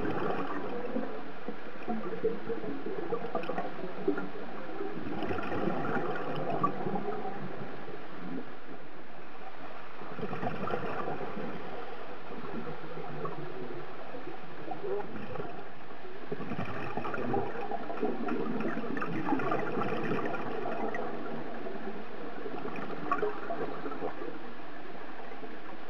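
Scuba diver's regulator underwater, exhaled bubbles gurgling and crackling in bursts a few seconds long with quieter gaps between breaths.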